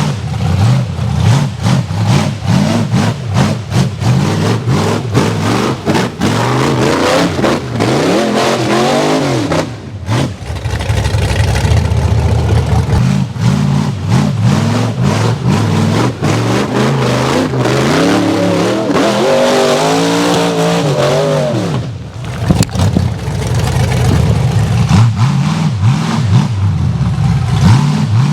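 Rock bouncer buggy's big V8 engine revving hard again and again, its pitch jumping up and down as the throttle is stabbed. The engine briefly drops off twice, about ten seconds in and again near the twenty-two second mark.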